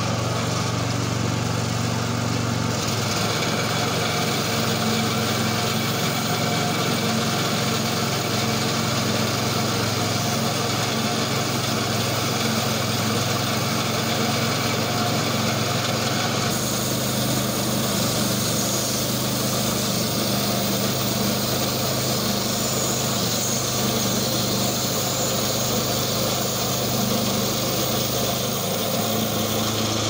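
Homemade bandsaw mill driven by an 8 hp single-cylinder gasoline engine, running steadily while its band blade is pushed through a log. The engine note drops about three seconds in, and the sound changes again about halfway through.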